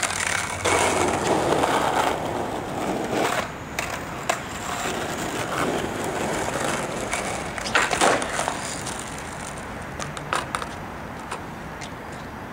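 Skateboard wheels rolling on street asphalt, loudest over the first few seconds, with several sharp clacks of the board hitting the pavement; the loudest clack comes about two-thirds of the way through.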